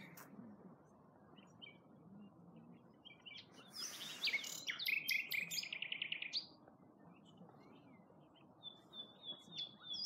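Common nightingale singing: a loud phrase of whistles and a fast run of repeated notes in the middle, then a run of high, evenly repeated notes near the end.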